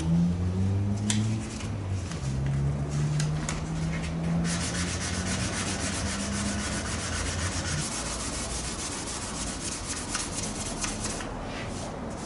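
Sandpaper rubbed by hand over primer surfacer on a car's roof, levelling the primer. A few scattered strokes come first, then quick, steady back-and-forth strokes from about four seconds in until shortly before the end.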